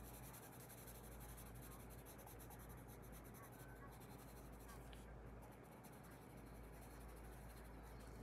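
Faint, rapid scratching of a colored pencil shading on paper, thinning out after about five seconds.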